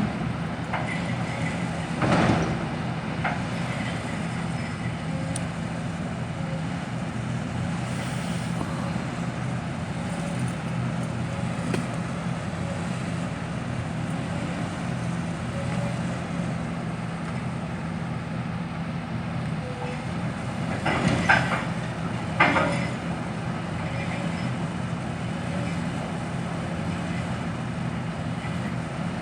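Excavator's diesel engine running steadily, with a few brief knocks: one a couple of seconds in and two about two-thirds of the way through.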